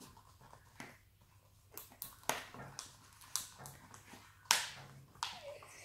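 Mixing two-part liquid foam in a container: a stick knocking against the container in sharp, irregular taps, the loudest a little past halfway, with a short falling squeak near the end.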